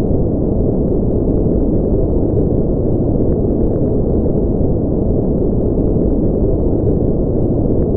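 Steady deep rumbling noise that does not change, with a few faint ticks.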